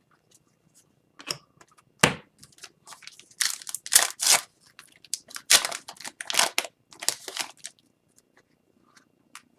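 Upper Deck hockey card pack's foil wrapper torn open and crinkled in the hands: a run of short crackling rips and rustles over about six seconds, the sharpest about two seconds in, then it stops.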